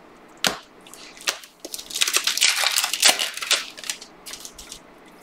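Trading cards and their foil pack wrapper being handled. There is a sharp click about half a second in, then about a second and a half of dense crinkling and crackling with a snap near the middle, tapering off into a few light ticks.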